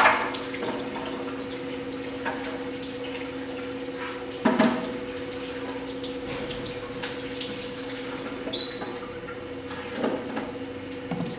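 Potter's wheel humming steadily while a spinning wet clay vase is worked with a hand-held tool and clay-covered hands. A few wet scraping and squelching sounds come about a second apart at the start, in the middle, and twice near the end, and there is a brief high squeak about two-thirds of the way through.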